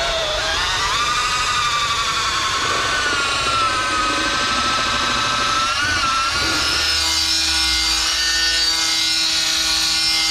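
Handheld electric power tool running under load, a loud motor whine that wavers and bends in pitch, then holds at a steady pitch for the last few seconds.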